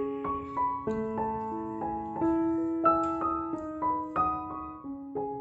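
Background piano music: a gentle melody of single notes, each struck and left to ring, several notes a second.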